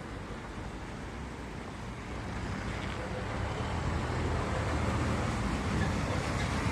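Steady vehicle noise with a low hum, growing louder from about two seconds in.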